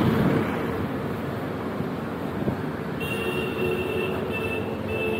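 Roadside traffic noise, a steady hum of passing vehicles. From about three seconds in, a high thin tone comes and goes in short broken stretches.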